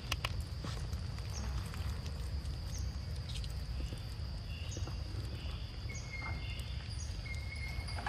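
Outdoor ambience: a steady high-pitched insect drone with scattered short chirps, over a deep steady rumble, and two sharp clicks right at the start.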